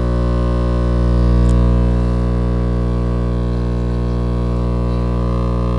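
Two Sundown E8 8-inch subwoofers playing a loud, steady low bass tone full of evenly spaced overtones, driven continuously at high power. The tone swells slightly about a second and a half in.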